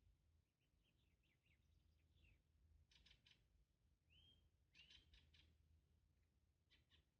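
Very quiet birds chirping: short clusters of quick high chirps, some falling notes and a couple of curved whistled notes, coming every second or so.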